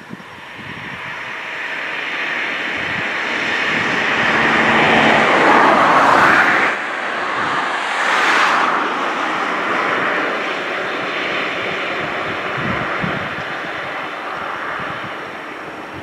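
Electric regional train approaching, a rushing running noise that swells to its loudest about six to eight seconds in, then eases off somewhat.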